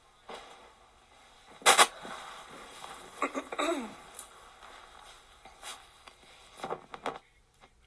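Sharp knocks and clattering as ceiling fan parts and cardboard boxes are handled: a loud double knock about two seconds in, then more scattered clatters.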